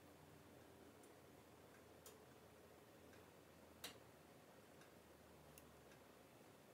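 Near silence: faint room tone with a few faint clicks, the clearest about four seconds in.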